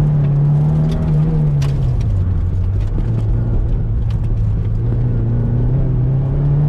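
Naturally aspirated Toyota MR2's mid-mounted four-cylinder engine running hard during an autocross run. Its pitch drops about two seconds in, then climbs steadily again as the car accelerates. A sharp click is heard about a second and a half in.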